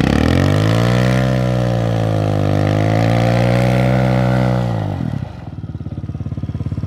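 Small dirt bike's single-cylinder engine revved up hard and held high for about four seconds, the rear wheel spinning in place in the sand, then dropping back to a pulsing idle about five seconds in.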